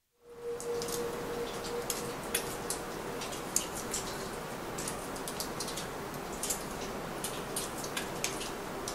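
A steady hiss that fades in from silence, dotted with many irregular, sharp high-pitched clicks and ticks, over a faint steady low tone.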